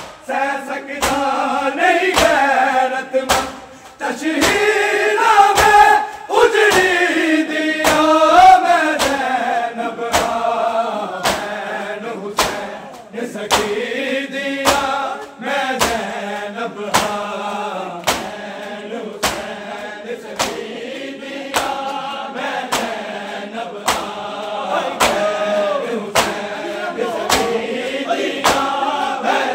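A crowd of men chanting a Punjabi noha (Shia lament) together. Sharp slaps of hands striking bare chests (matam) keep a steady beat under the singing.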